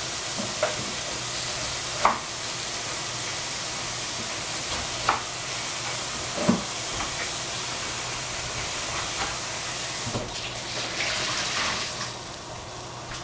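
Food sizzling steadily in a hot pan as it is stir-fried, with a few sharp knocks of a utensil against the pan. The sizzle dies down near the end.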